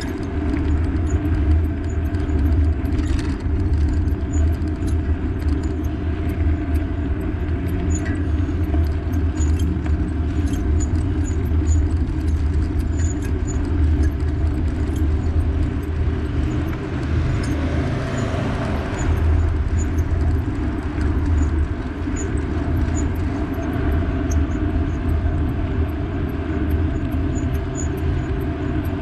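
Steady low rumble of riding along a road, with wind and road noise on the microphone and faint regular ticking. A louder rush swells and fades about two-thirds of the way through.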